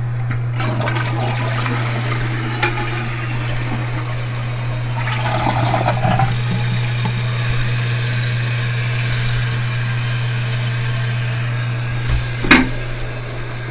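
Toilet with a newly installed flush valve flushing and its tank refilling: water rushing steadily over a low hum. A single sharp knock comes near the end.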